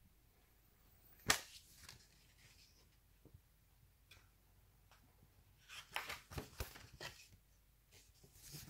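Faint handling noise of a plastic candy pouch and other packaging: one sharp tap about a second in, then a cluster of short rustles and taps around six to seven seconds.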